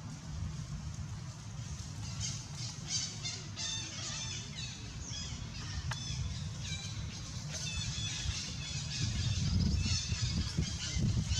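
Many short, high-pitched animal chirps and squeaks, some dropping in pitch, in quick irregular succession over a low rumble that grows louder near the end.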